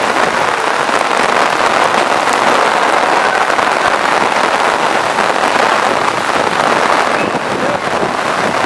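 Heavy rain pouring down steadily, a loud, even hiss of downpour.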